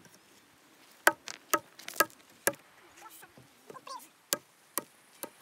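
Hatchet blade striking a piece of driftwood, sharp knocks about two a second: four chops, a pause, then three more.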